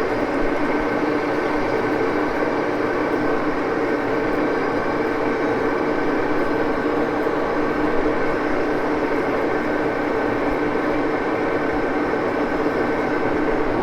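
Axelson engine lathe running steadily, a constant mechanical hum with several steady whining tones from its drive.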